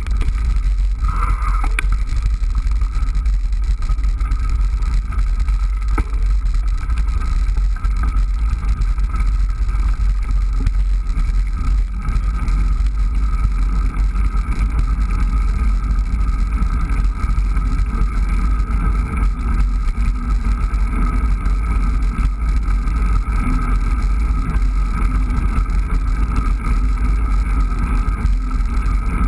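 Steady low rumble of wind and road vibration on a bicycle-mounted camera riding along a tarmac path, with a faint steady whine above it.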